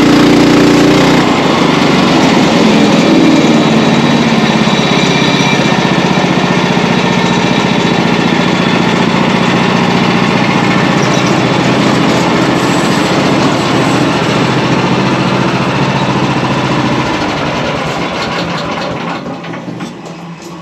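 A portable sawmill running hard, its gas engine's pitch dropping about a second in as it takes the load of the blade cutting through a log. It then runs on steadily and fades away over the last few seconds, with a few clicks near the end.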